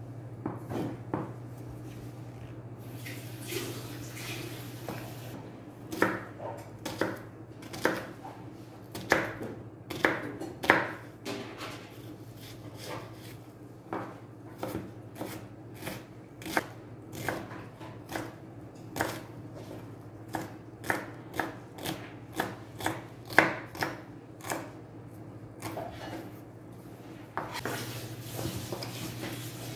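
Kitchen knife chopping a red onion on a cutting board: a long run of sharp, irregular knocks, about one or two a second, starting about six seconds in and stopping a few seconds before the end.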